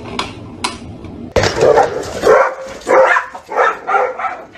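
A mechanical metronome ticks a couple of times. About a second and a half in, dogs break into a run of loud barks, one every half second or so.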